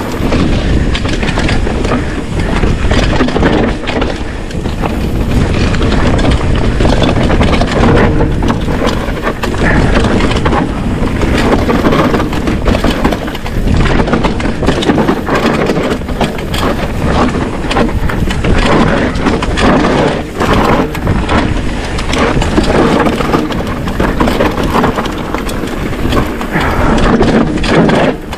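Trek Slash full-suspension mountain bike riding fast down dirt forest singletrack: knobbly Bontrager Kryptotal tyres rolling and scrabbling over loose dirt, with constant rattling and knocks from the chain and frame over bumps. A heavy low rumble of wind buffets the microphone throughout.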